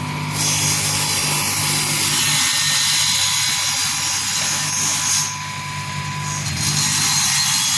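Automatic CNC wood cutting saw running with a steady motor hum while its blade cuts through square solid wood twice: a long cut of about five seconds, then a shorter one starting near the end.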